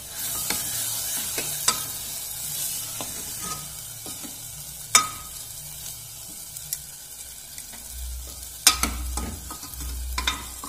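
Metal ladle stirring chana dal into sizzling tomato masala in a pressure cooker: a steady sizzle with a few sharp clinks of the ladle against the pot, the loudest about halfway through and near the end.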